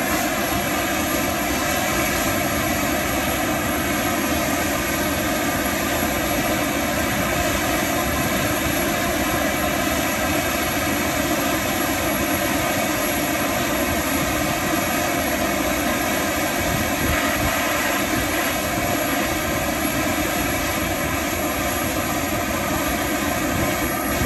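Boeing 757's tail-mounted gas-turbine auxiliary power unit running steadily, a constant whine of several steady tones over a rushing exhaust.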